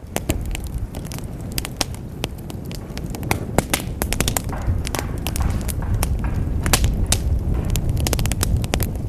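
Wood fire crackling in a fireplace: a steady low rumble of flames with frequent sharp pops and snaps, a few of them louder.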